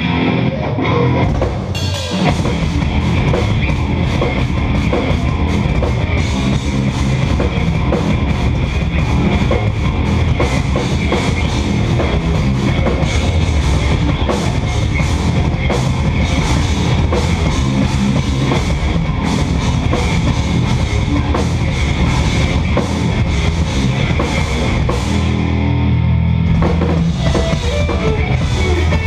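Live instrumental progressive metal: eight-string electric guitars and a drum kit playing loudly, with heavy kick drum and dense, fast riffing.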